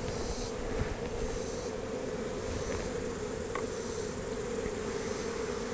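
Honey bees buzzing in a steady hum around an opened hive as its frames are worked.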